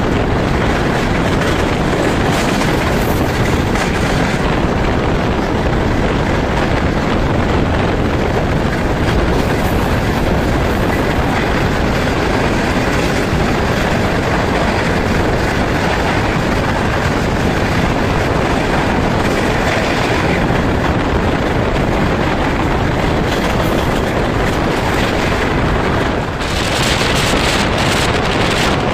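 Passenger train running at high speed, heard from an open door or window: a loud, steady rush of wheels on the track and air. A little before the end the rush dips briefly, then comes back with a brighter hiss.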